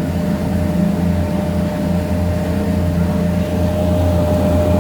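A passenger boat's engine running steadily under way, heard on board as a low, even drone with a thin steady whine above it.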